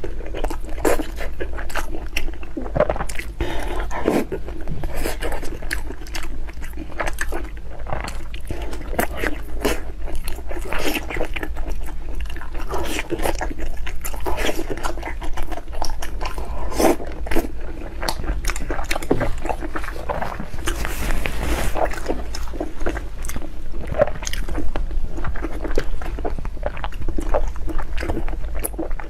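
Close-miked eating: continuous biting and chewing with many quick, irregular wet smacks and clicks, over a steady low hum.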